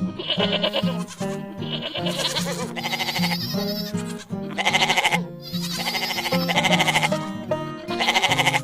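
Goats bleating several times, each call wavering and pulsing, over background music.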